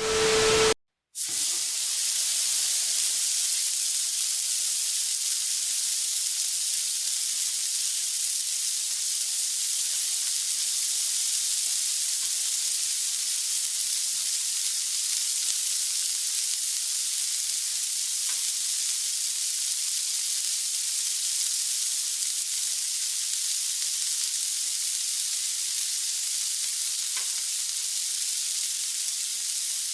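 Samgyeopsal pork belly sizzling steadily on a grill, an even hiss with no break. A snatch of music cuts off in the first second, just before the sizzling starts.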